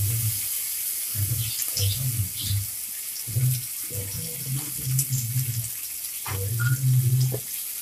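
Cut tomatoes frying in hot oil with panch phoron in a kadai: a steady sizzle, with a few faint ticks.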